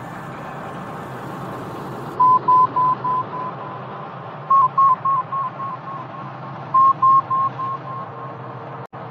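Three runs of short electronic beeps on one steady tone, about three beeps a second, each run starting loud and fading away like an echo, over the steady low hum of a spacecraft cockpit.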